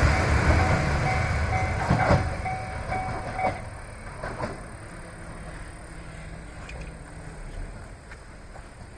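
Diesel train passing a level crossing and moving away, its rumble fading over the first few seconds. The crossing's warning bell rings in quick repeated tones and stops about three and a half seconds in, with a few clunks from the wheels over the rails.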